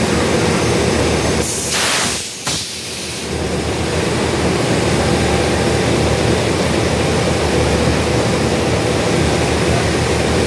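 Diesel locomotive idling steadily at close range, with a brief hiss about two seconds in.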